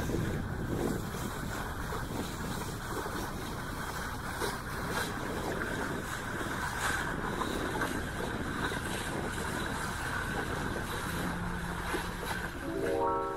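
Water rushing and splashing along the hull of a sailing trimaran under way, with steady wind buffeting the microphone. Faint music comes in near the end.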